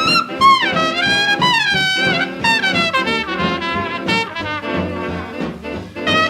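A 1940s swing big band playing from a 78 rpm record, with a trumpet leading through a quick line that slides between notes, backed by trombones and saxophones.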